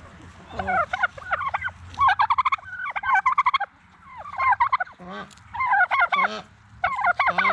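Domestic tom turkeys gobbling again and again, a short rattling gobble roughly every second.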